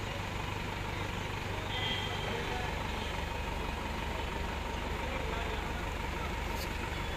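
Forklift engine running steadily while the mast lifts a pallet on the forks.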